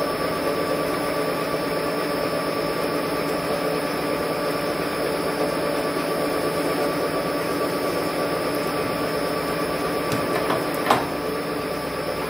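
Metal lathe running steadily, turning a metal bush under a flow of coolant, with a constant whine from its drive. A single sharp click comes about eleven seconds in, and the machine starts to wind down at the very end.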